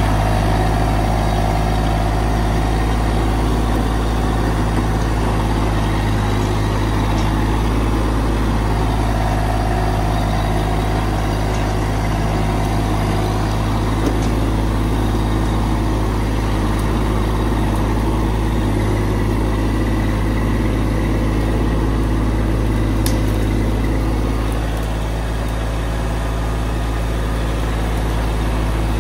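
Massey Ferguson GC1710 compact tractor's diesel engine running steadily, easing slightly near the end.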